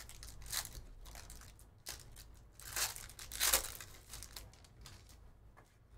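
Foil wrapper of a 2023 Panini Phoenix Football hobby pack being torn open and pulled apart by hand, crinkling in several bursts, loudest a little past halfway.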